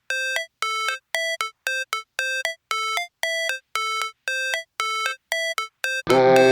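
Background music: short, evenly spaced pitched notes, about two a second, with silence between them. Near the end a fuller track with bass comes in.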